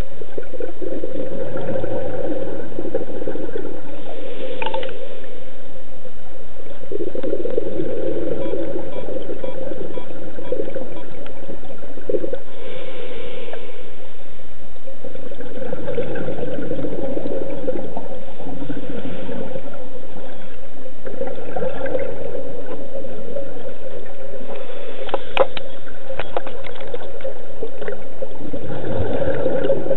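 Scuba regulator exhaust bubbles rushing past an underwater camera housing, swelling in bursts every few seconds with the diver's breaths over a steady underwater hiss, with a few sharp clicks late on.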